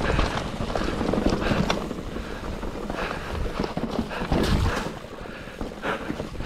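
Mountain bike descending a dirt forest trail: tyres rumbling over the ground with a continuous rattle and irregular knocks from the bike as it hits roots and bumps.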